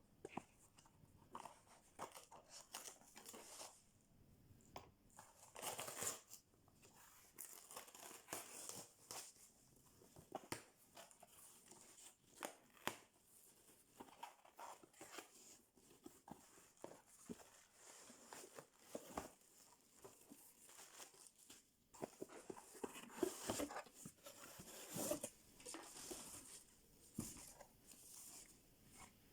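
Packaging being torn open and handled during an unboxing: soft, irregular rustling, crinkling and tearing with small clicks, a little louder about six seconds in and again near the end.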